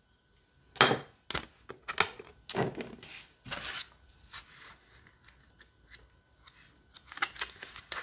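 Pages of a small paperback guidebook being flipped and turned: a string of short papery rustles and flicks, loudest in the first few seconds, fainter in the middle, with a quick cluster near the end.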